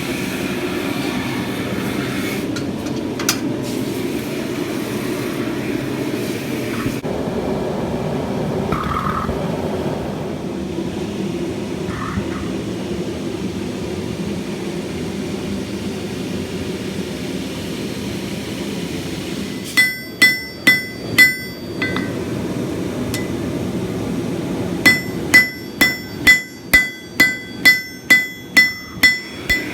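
Blacksmith's hammer ringing on an anvil while forging a small bracket from scrap steel: four quick blows about twenty seconds in, then a run of about ten blows at two a second near the end, over a steady rushing noise from the forge.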